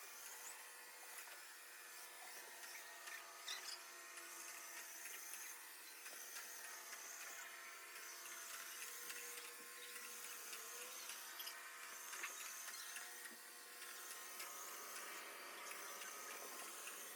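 SwitchBot S10 robot vacuum running faintly as it sweeps up confetti: a steady, quiet motor whine with a few small scattered ticks.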